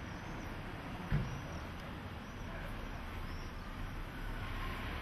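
Outdoor town street ambience: a steady low rumble like distant traffic, with a single knock about a second in and faint high chirps about once a second.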